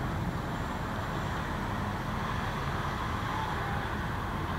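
Steady hum of distant city road traffic, an even low rumble with no single passing vehicle standing out.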